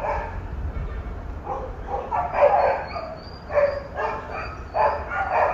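Dog barking, about five short barks spread over a few seconds.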